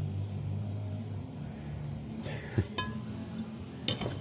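A knock, then a metallic clink with a short ring about two and a half seconds in, and another sharp knock near the end: Ford C6 transmission parts being handled on a workbench.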